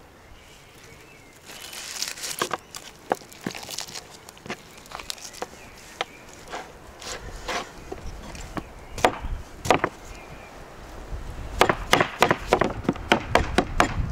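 Hands tearing apart a spit-roasted chicken and handling food on a wooden cutting board, with scattered knocks and crackles. Near the end comes a fast run of cleaver chops on the wooden board.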